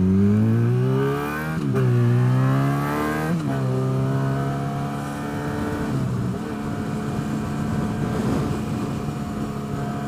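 Motorcycle engine accelerating through the gears: its pitch rises and drops at two upshifts, about one and a half and three and a half seconds in, then holds a steady cruising note from about six seconds in, over a steady rush of wind noise.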